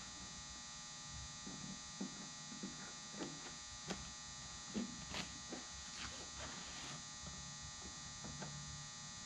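Faint, scattered ticks and crackles as the hot tip of a wood-burning tool melts a hole through aircraft covering fabric, over a steady electrical hum and buzz.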